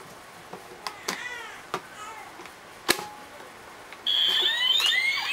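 Keypad presses on a toy electronic money safe give a few light clicks, the sharpest about three seconds in. About four seconds in, the safe's speaker starts a loud electronic jingle of high, shifting tones, the signal that the code is accepted and the door unlocks.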